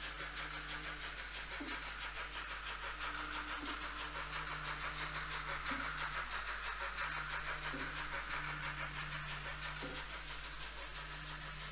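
N-scale model steam locomotive and freight wagons running along the track: a steady rattling hiss of the wheels on the rails over a low, even hum.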